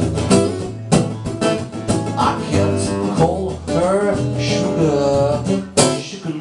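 Two acoustic guitars strummed and picked in a steady rhythm through an instrumental break in a country-blues song. In the second half a melody line slides up and down in pitch over the strumming.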